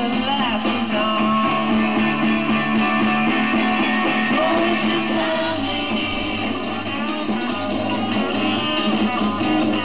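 Rock music with electric guitar and a singing voice, played from a vinyl LP on a Fidelity HF45 record player.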